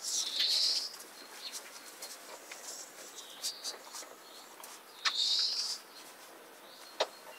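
Golden retriever puppies squealing while they nurse: two short high-pitched squeals, one just after the start and one about five seconds in, with small clicks between.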